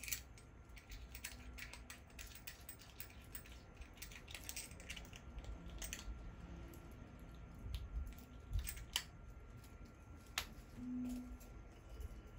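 Irregular small clicks and taps of a wristwatch and its bracelet being handled, with a few sharper clicks late on.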